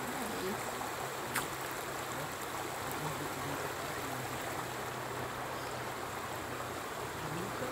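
Steady rushing of flowing river water under a low hum, with a single short click about a second and a half in.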